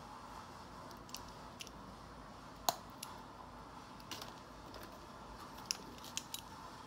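Faint scattered clicks and taps as a small metal air-hose fitting and plastic tubing are handled and pushed onto an airbrush, the sharpest click about two and a half seconds in.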